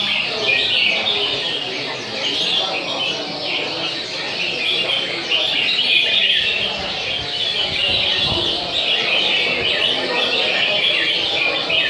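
Many caged red-whiskered bulbuls chirping and singing over one another in a dense, unbroken chorus.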